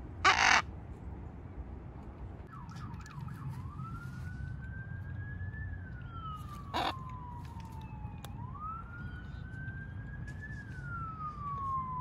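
A Miligold macaw gives one short, harsh squawk. A distant siren then wails slowly up and down twice, with a brief sharp noise partway through.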